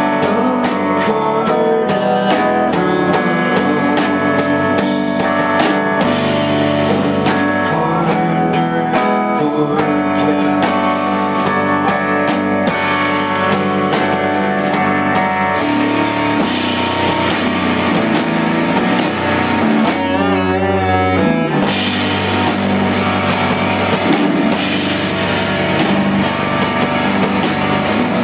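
Live rock band playing an instrumental passage on electric guitar, bass guitar and drums. About twenty seconds in, the cymbals drop out briefly and a single wavering note rings, then the full band comes back in.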